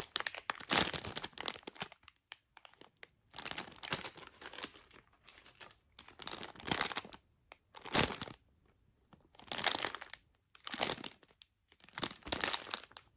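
Plastic wrapping crinkling in a series of short bursts with brief pauses between them, as it is handled.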